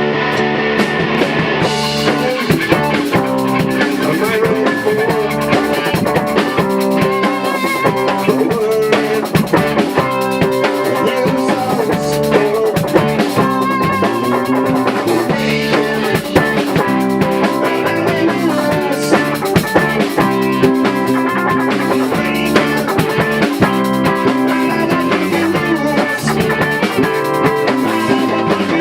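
A rock band playing: electric guitar and bass over a drum kit, with the drums coming in about two seconds in.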